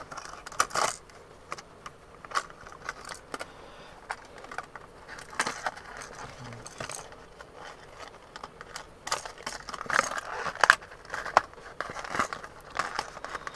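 Fishing lures and their plastic blister packs being handled: irregular clicks, crinkles and scrapes with light metallic jingling, busier in the second half.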